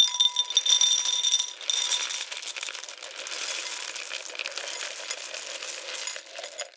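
Dry cereal poured into a bowl: a dense patter of many small pieces landing. A clear ringing tone sits over the first couple of seconds, then the pour settles into a steadier, even rattle that stops abruptly near the end.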